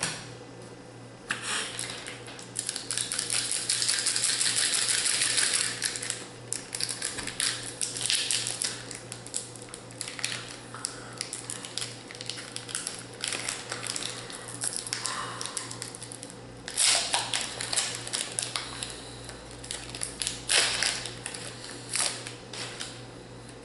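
Foil wrapper of a Magic: The Gathering booster pack crinkling and tearing as it is opened by hand: a dense crackle for a few seconds near the start, then scattered crinkles and rustles.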